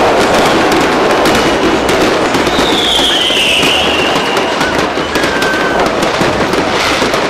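Fireworks display with aerial shells bursting in rapid, continuous crackling and popping. A high whistle sliding slightly downward runs through it about three seconds in.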